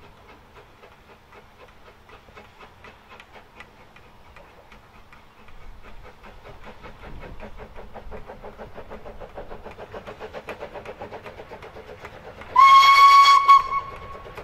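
Two-foot-gauge steam locomotive Pedemoura hauling a passenger train, its exhaust chuffing in quick, even beats that grow louder as it approaches. Near the end it sounds its whistle in one loud blast of about a second.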